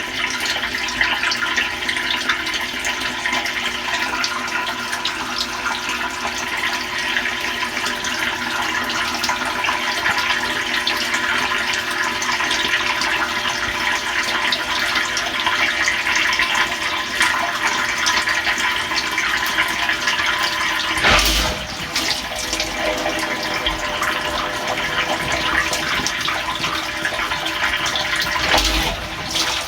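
Water spraying and splashing inside a Samsung dishwasher tub during its test cycle, heard from inside the tub by a microphone sealed in plastic bags, over a steady hum. Two short knocks stand out, one about two-thirds of the way through and one near the end.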